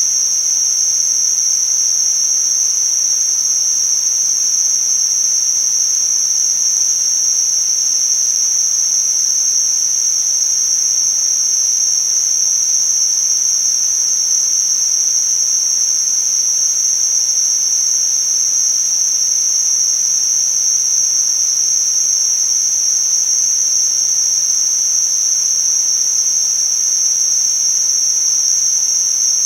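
Tinnitus-masking noise: a steady, unchanging high-pitched hiss held to a narrow pitch band, over a faint broad hiss.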